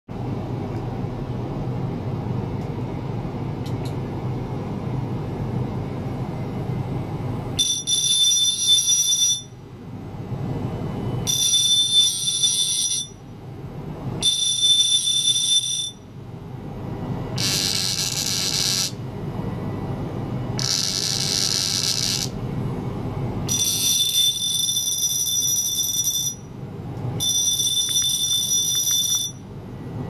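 An electric toothbrush vibrating against a glass bottle and steel tray, heard as about seven spells of high-pitched buzzing, each one and a half to two and a half seconds long. A steady low hum runs under the first several seconds.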